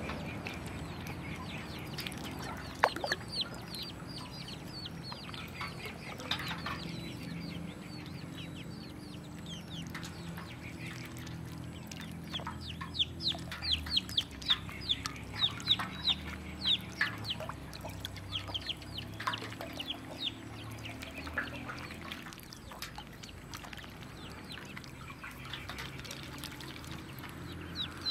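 Ducklings peeping: many short, high calls that fall in pitch, busiest about halfway through.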